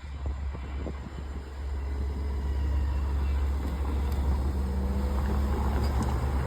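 A vehicle engine running with a low rumble. A few light clicks come in the first second, and a steady hum builds from about four seconds in as it grows louder.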